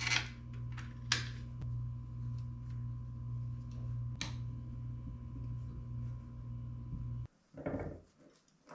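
Small clicks and knocks of hands and tool on the crossbow's metal and plastic parts as the bolt securing the riser to the stock is screwed in, over a steady low hum. The hum cuts off suddenly near the end, followed by a brief louder clatter of handling.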